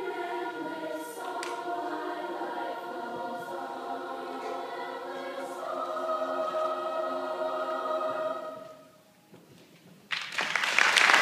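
Large children's choir singing, the last long held notes of the song fading out about nine seconds in. After a brief hush, the audience breaks into loud applause near the end.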